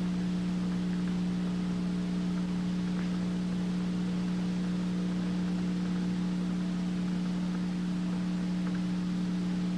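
Steady low electronic hum made of two held low tones with fainter higher overtones, over a constant hiss, unchanging throughout.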